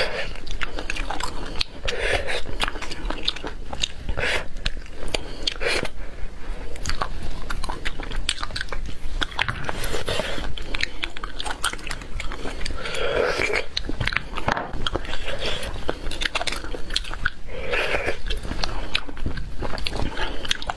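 Close-miked eating sounds of roasted bone marrow being spooned and sucked from a bone and chewed: dense wet mouth clicks and chewing, with a fuller wet sound every few seconds.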